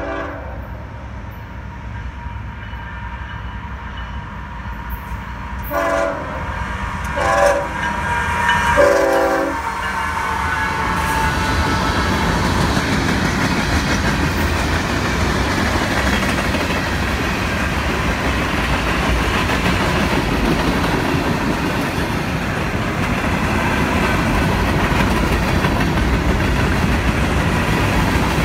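CSX GE ES44AH freight locomotive sounding its horn in three short blasts as it approaches, followed by the steady rumble and clatter of a long freight train's cars rolling past on the rails.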